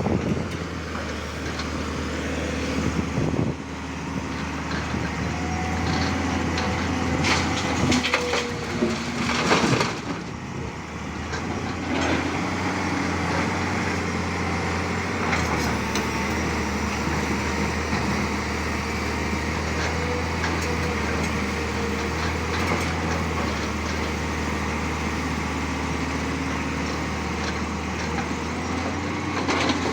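Excavator's diesel engine running steadily under load, with a whine that shifts slightly in pitch and several knocks and crunches, most of them in the first twelve seconds.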